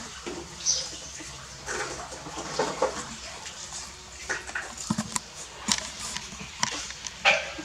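A litter of puppies suckling at their mother: irregular wet smacking and slurping sounds.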